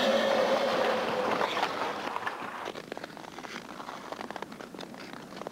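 Ice skate blades hissing and scraping across the ice as a skater strides and glides. The sound is loudest at the start and fades away.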